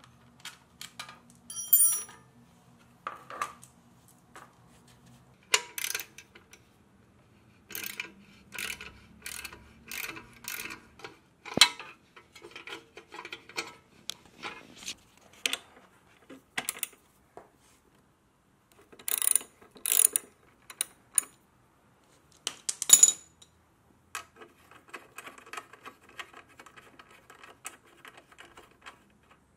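A hand socket ratchet clicking in runs of rapid even clicks as bolts on a motorcycle's exhaust and fairing are undone. Sharp metallic clinks of loose bolts and small parts being handled come in between.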